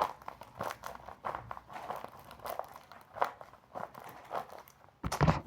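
A paper squishy being handled and squeezed: taped paper crinkling and rustling in short, irregular bursts, with a louder rustle near the end.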